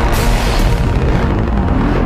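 Background music with deep bass and a steady drum beat of about three hits a second; the upper drum hits fade out in the second half and return just after.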